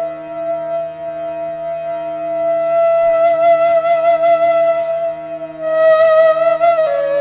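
Background flute music: the flute holds one long note with a gentle vibrato over a steady low drone, then steps down to a lower note near the end.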